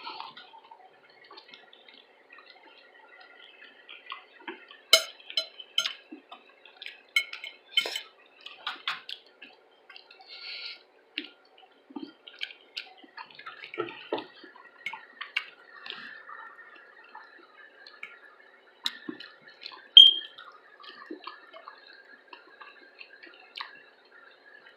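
Close-miked eating: irregular mouth clicks and smacks of chewing, with the odd tap of a utensil on a dish and one louder, sharp click about twenty seconds in.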